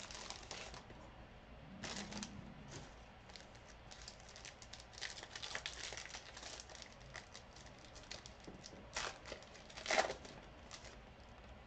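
Trading cards being handled and sorted by hand: irregular light crinkling and small clicks, with a slightly louder rustle about ten seconds in.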